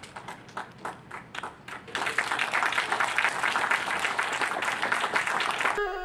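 Audience applauding: a few scattered claps at first, swelling into full, dense applause about two seconds in. Background music cuts in near the end.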